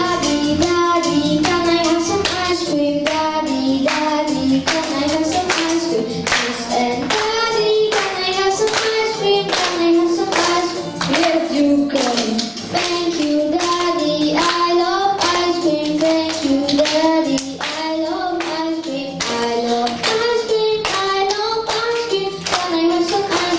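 Two young children singing a song into microphones, with a steady clapped beat about twice a second.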